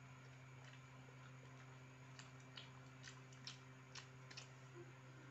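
Faint eating sounds: a scattering of small clicks and smacks from chewing and from picking at fried chicken and rice by hand, starting about two seconds in. A steady low hum of an electric fan runs underneath.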